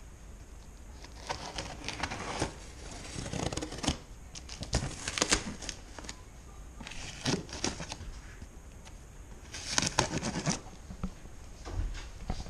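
Several short bursts of scraping and crinkling, handling noise from a cardboard parcel wrapped in plastic packing tape.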